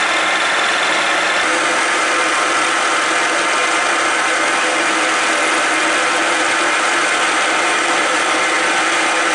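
Deckel FP1 milling machine running under power, its cutter milling across the edge of a metal plate as the table feeds it along: a steady machining noise with several steady tones.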